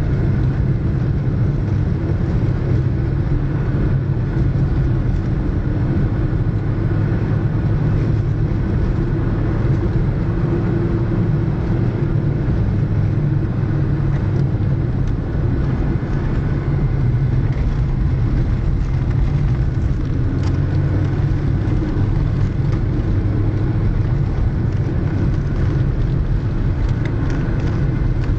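VW Vento driving at road speed on studded winter tyres over a rough washboard road: a steady engine drone under constant tyre and road rumble, with faint ticks now and then.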